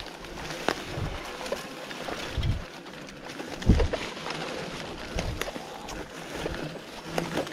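Bicycle ridden over rough ground, with wind buffeting the action-camera microphone in repeated low thumps, and scattered clicks and rattles from the bike.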